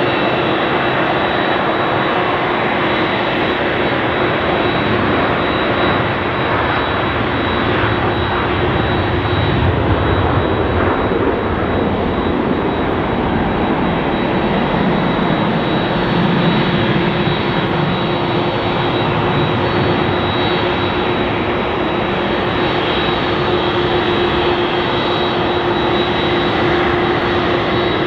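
Boeing 767-400ER's twin turbofan engines running at low taxi power as the airliner taxis past: a loud, steady jet rumble with a steady high whine over it. The low rumble swells briefly about a third of the way in and again just past halfway.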